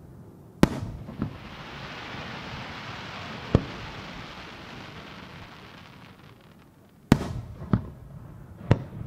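Aerial firework shells bursting: about six sharp bangs, a pair in the first second and a half, one in the middle and a quick run of three near the end, with a steady hiss between the early and late bangs.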